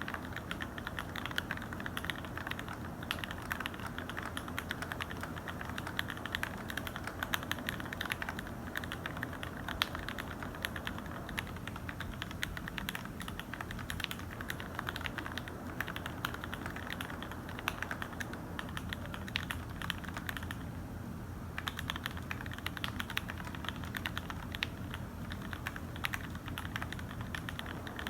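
Typing on a custom 65% mechanical keyboard: a Tofu65 acrylic case with lubed and filmed Gateron KS3 Yellow linear switches and JTK keycaps. It is a continuous stream of rapid keystrokes, with a brief lull about twenty seconds in.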